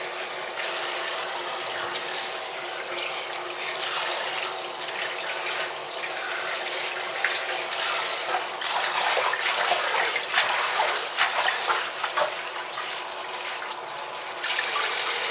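Kitchen tap running in a steady spray onto sorrel leaves in a stainless-steel bowl, with irregular splashing as hands turn the wet leaves under the stream, busiest in the middle.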